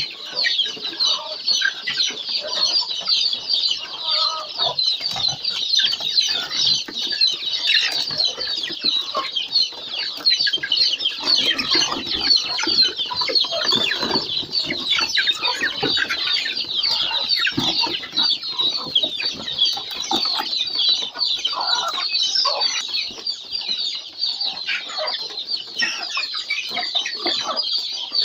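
A flock of free-range Kienyeji chickens clucking and calling as they crowd and scramble over cabbage at feeding, with a constant high chirping running through it.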